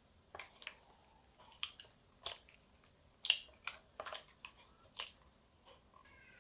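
Hen's eggs being cracked and emptied into a plastic mixing bowl: an irregular series of faint, sharp shell cracks and clicks, the loudest a little past the middle.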